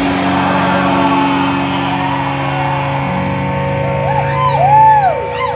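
Loud amplified band drone: the full-band playing cuts off and held notes ring on as a steady drone. About four seconds in, a warbling tone starts sweeping up and down in quick arcs like a siren.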